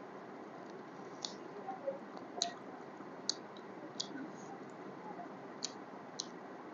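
Mouth sounds of someone eating pork biryani: about six sharp, irregular wet clicks and lip smacks while chewing, over a steady hiss.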